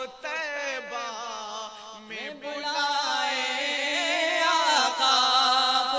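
A man singing a naat unaccompanied into a microphone: long, drawn-out melismatic phrases with a short break about two seconds in, then a long held note that bends up and down.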